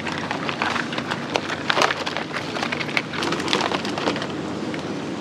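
Irregular clicking and clattering of live mud crabs' hard shells and claws against plastic baskets as they are handled and dropped in, over a steady hiss.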